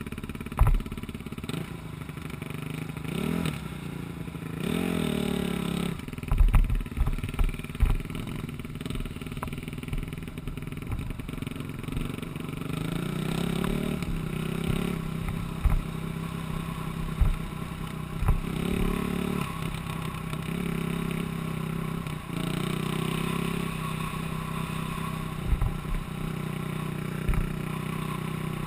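ATV engine revving as it pulls away and then running along a rough dirt track, its pitch rising and falling with the throttle. Scattered knocks and clatter come from the bumps in the track.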